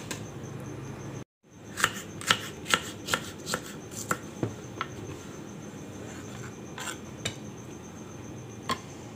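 Kitchen knife chopping fresh okra pods on a wooden cutting board: a quick run of sharp chops, about four a second, followed by a few scattered knocks near the end.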